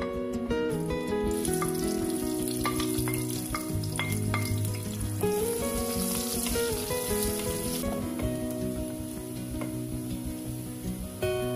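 Sliced onion frying in hot oil with whole spices in a pressure cooker: a steady sizzle that starts about a second in as the onion goes in, stirred with a wooden spoon. Background music plays throughout.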